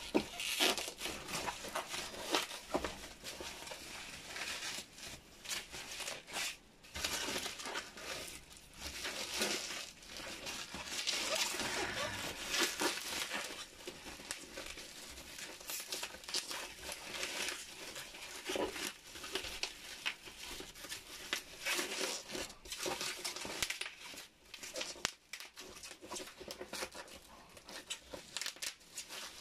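Bubble wrap and plastic wrapping crinkling and rustling in irregular bursts as hands pull them off a taped cardboard box.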